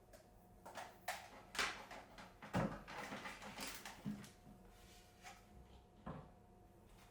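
A series of knocks and clatters, household handling noises, loudest about two and a half seconds in, with a brief rustling stretch after it.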